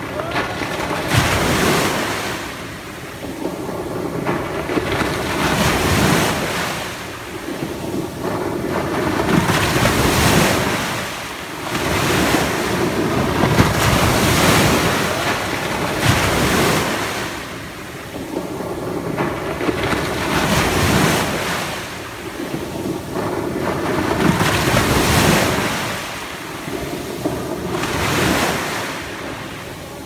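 Small ocean waves breaking and washing up a coarse sand and pebble beach. The surf swells and falls back in surges about every four to five seconds.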